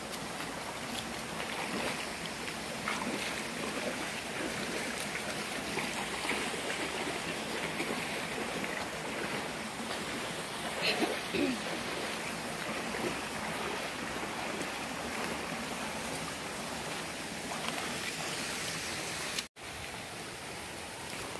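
Steady rushing of a rocky stream's flowing water, with a couple of brief louder sounds about halfway through and a momentary dropout near the end.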